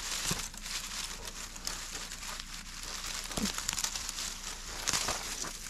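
Dry grass stalks and dead leaves rustling and crackling as a hand pushes through them and grips a leafy wild plant to pick it, with a few louder crackles scattered through.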